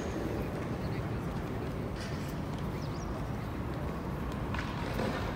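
Town street ambience: a steady low background rumble with a few faint footstep-like clicks and snatches of passers-by's voices.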